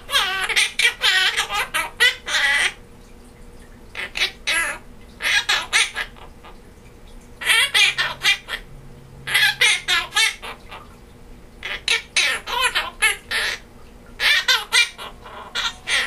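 Quaker parrot (monk parakeet) vocalising in short bursts of mimicry, with laughter-like sounds among the phrases; about six phrases, each a second or two long, with short pauses between them.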